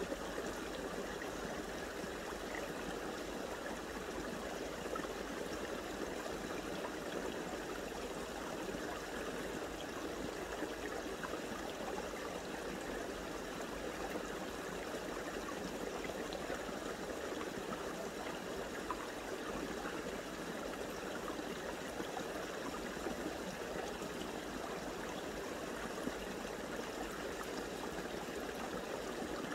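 Steady rush of flowing water, as of a small stream, running evenly with no change.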